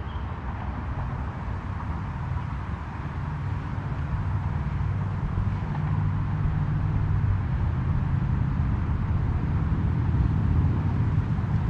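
Steady low outdoor rumble with a faint even hiss over it, with no distinct events.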